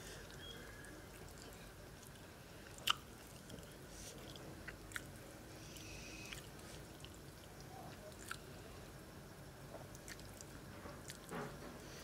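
Fingers mixing flattened-rice pulao and picking at boal fish on a clay plate: soft handling sounds with a few scattered small clicks, the sharpest about three seconds in.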